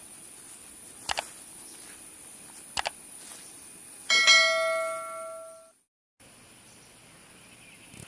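Subscribe-button animation sound effects: a double mouse click about a second in and another a little before three seconds, then a bright bell-like notification chime about four seconds in that rings out for about a second and a half. The sound drops out completely for a moment, over a steady high insect drone.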